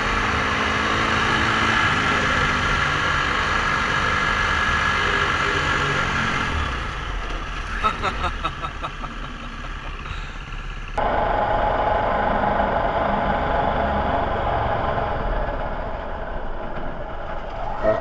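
A KTM 350 EXC-F dirt bike's single-cylinder four-stroke engine running at road speed. About seven seconds in, the engine drops off and a run of sharp clicks and knocks follows. About eleven seconds in, the sound cuts abruptly to a half-speed replay, so the engine and road noise are slowed and lower in pitch.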